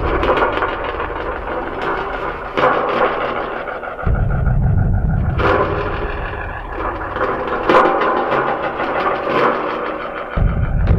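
Experimental sound-art soundtrack: a dense, crackling noise texture full of sharp clicks and clatters, with a deep rumble that cuts in abruptly about four seconds in and again near the end.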